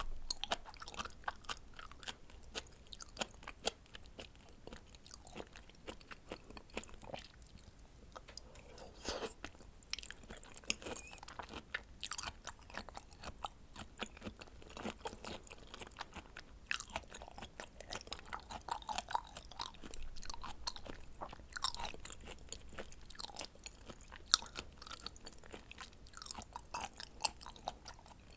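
Chewing of raw seafood, red shrimp and scallop sashimi: a steady, uneven run of sharp wet clicks and smacks from the mouth.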